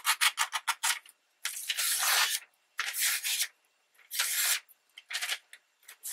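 Paper being rubbed and slid by hand: a quick run of short scrapes in the first second, then several separate longer swishes.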